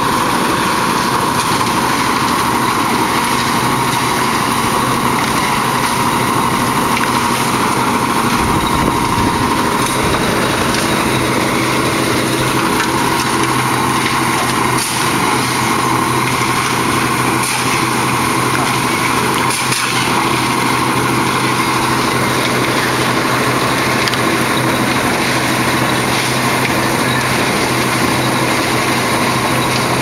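Engine of an on-site concrete mixer running steadily, a constant drone that does not let up.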